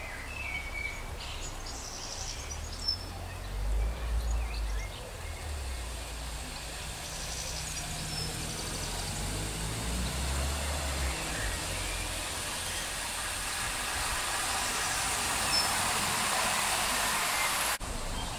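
OO gauge model train running along its track, a whirring, rushing sound of motor and wheels on rail that grows steadily louder as it approaches and cuts off abruptly near the end.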